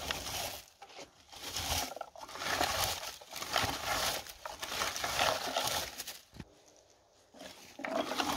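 A person moving through forest undergrowth: rustling and crunching in irregular bursts about a second apart, with short pauses between them.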